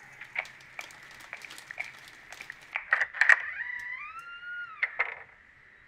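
Kitchen cooking sounds: a spatula clicking and scraping in a frying pan of simmering sauce. About three and a half seconds in comes a high rising tone that levels off and cuts off after about a second and a half.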